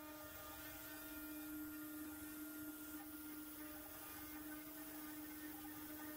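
CNC router spindle spinning a carbide router bit at about 18,000 RPM as it carves into a cherry board, giving a steady, even hum.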